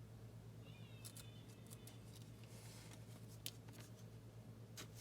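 Quiet handling of trading cards: a few faint clicks and soft rustles over a steady low hum.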